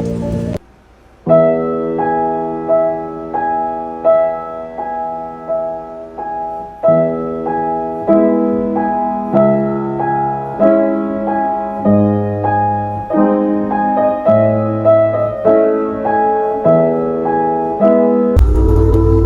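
Solo piano music: a slow, steady run of struck notes over low bass notes, starting after a brief gap about a second in. Near the end it cuts to a fuller, noisier sound.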